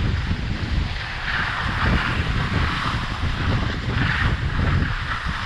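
Skis sliding and scraping over packed snow during a downhill run, under heavy wind buffeting on the microphone. The scraping hiss swells twice, about a second in and again around four seconds.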